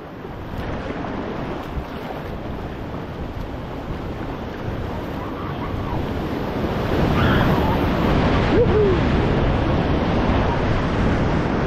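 Whitewater rapids rushing around a paddle raft: a steady roar of churning water that grows louder about seven seconds in as the raft drops into the rapid.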